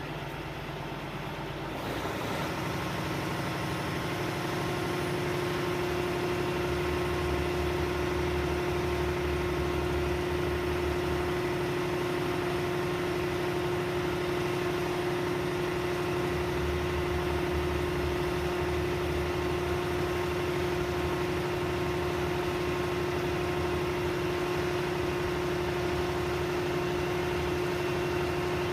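Crane engine running steadily with a steady whining tone over it. It gets louder about two seconds in, and its low rumble swells and eases in long stretches, as under changing load.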